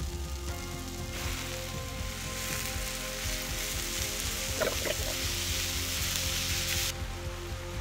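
Food frying in a hot pan: a steady sizzle that swells about a second in and drops back shortly before the end, with a brief stir near the middle.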